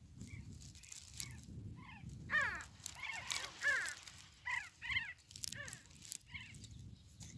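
Sandgrouse calling: a string of short, harsh bird calls that bend quickly in pitch, coming thickest and loudest in the middle of the stretch.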